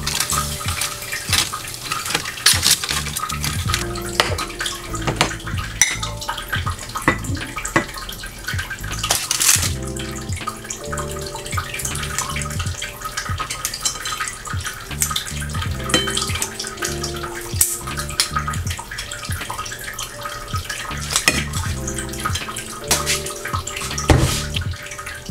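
Metal tongs and kitchen scissors clicking and snipping as cooked pork chops are cut and served from a foil-lined wire tray, over a steady rushing hiss and soft background music.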